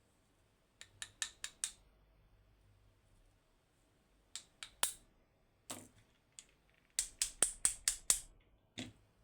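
Sharp metallic clicks and taps of lockpicking tools working the pins of an Anbo X18 lock. They come in quick runs: about five near the start, three a little before the middle, a fast run of about seven past the middle, and a single click near the end.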